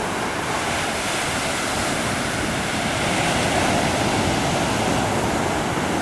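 Pacific Ocean surf washing onto the beach, a steady rush that swells a little about three seconds in.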